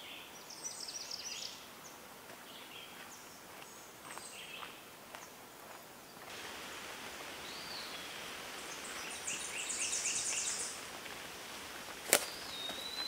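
Quiet outdoor ambience with scattered short bird chirps and calls, including a fast high trill about two-thirds of the way through. A steady hiss thickens about halfway, and a single sharp click comes near the end.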